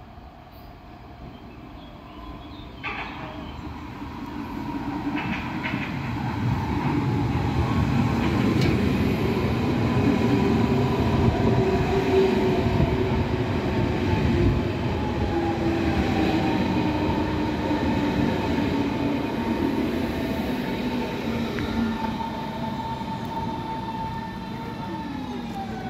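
Berlin S-Bahn Class 481 electric multiple unit arriving and braking to a stop. It grows from faint to loud as it comes in and passes. Its traction motors whine in steady tones that slowly fall in pitch as it slows, then drop quickly just before it stops near the end.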